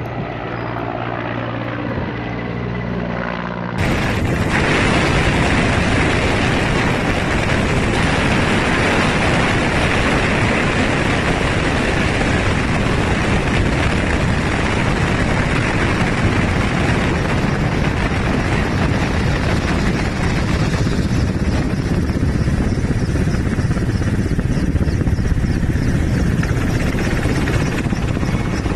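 Helicopter flying: a steady hum at first, then about four seconds in a sudden jump to a much louder, dense rushing noise that holds steady.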